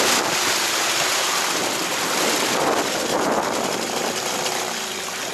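Steady rush and splash of sea water around a small inflatable boat, with wind.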